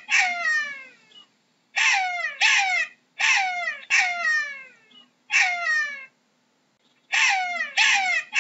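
Jackal giving a series of high calls. Each call starts high and slides sharply down in pitch, and they come mostly in pairs, about eight in all, with short silent gaps between groups.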